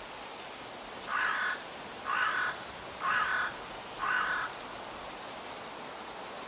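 A crow cawing four times, about a second apart, over a steady background hiss.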